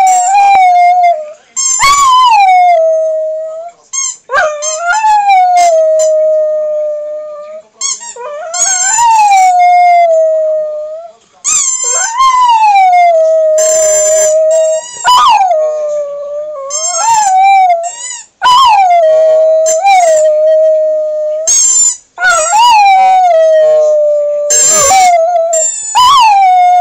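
Dog howling: a long run of drawn-out howls, each about two seconds, starting high and sliding down to a held lower note, with short breaks between.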